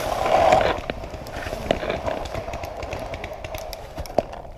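Running footsteps and rustling through dry leaf litter, with a paintball marker and kit jostling and knocking, loudest in the first second. One sharp knock stands out about four seconds in.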